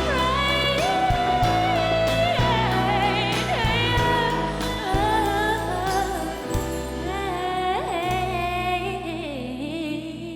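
A young female singer holding long notes with vibrato over a pop band backing with a steady beat. The music gets quieter toward the end as the song closes.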